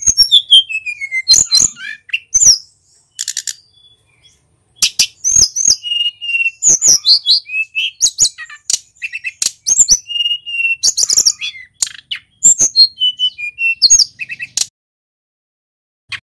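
A male sulingan gunung (mountain blue flycatcher) singing in a fast, varied run of clear whistled notes, rising and falling glides and trills. It breaks into phrases with a short lull after about three seconds, and stops near the end.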